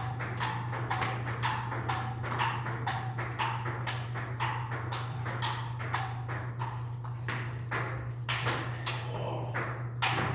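Table tennis ball in a rally, struck by bats and bouncing on the table: a steady run of sharp clicks, about three a second, thinning out near the end. A steady low hum sits underneath.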